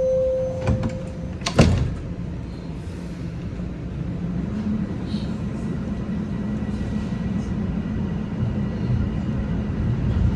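The last note of a TTC subway train's door chime, then its doors closing with a sharp thud about a second and a half in. After that comes the steady low rumble and hum of the train's motors and wheels as it pulls out of the station.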